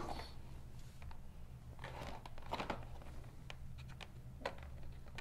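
Faint, scattered rustling and small clicks of a product's plastic wrapping and cardboard box being opened by hand.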